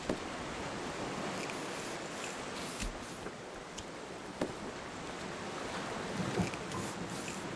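Steady rush of wind and sea around a sailing boat under way, with a few light knocks scattered through it.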